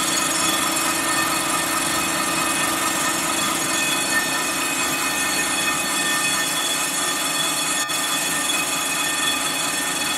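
Storm Vulcan Blockmaster 85B surfacing machine decking a warped Willys F134 cylinder head: its rotating cutter head takes a light cut across the deck face. The sound is a steady scraping machining noise with several steady whining tones, even throughout.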